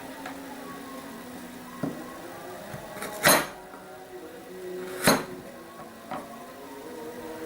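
Soft background music, with a few knocks and clatters of kitchen work over it; the two loudest, short and sharp, come about three and five seconds in.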